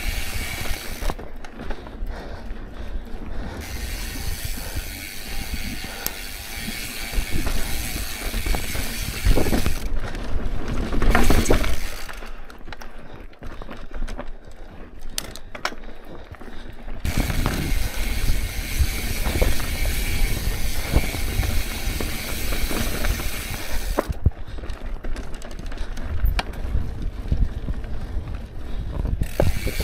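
Mountain bike's rear freehub ticking rapidly while coasting, over the rumble and rattle of tyres on a rough dirt trail. The ticking drops out in three stretches, and there are louder bumps around ten to eleven seconds in.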